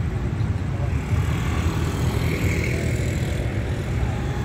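Steady low rumble of motorbike traffic, with a motorbike riding past close by.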